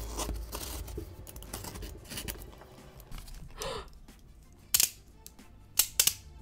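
Cardboard shipping box being opened and handled by hand: flaps scraping and rustling, with scattered sharp taps and knocks, the loudest about five and six seconds in.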